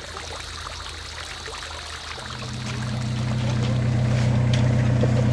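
Water trickling into a garden pond. About two seconds in, a steady low mechanical hum comes in and grows louder.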